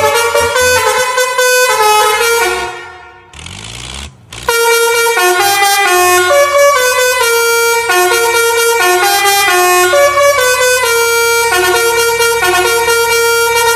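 A tune played on multi-tone truck air horns, stepping quickly from note to note. It fades out a few seconds in, a short hiss follows, and the horn tune starts again about four and a half seconds in.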